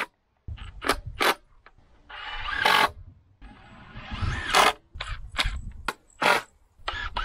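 Fence-building work with hand tools and timber: a string of short sharp knocks, with two longer scrapes in the middle that each grow louder before stopping.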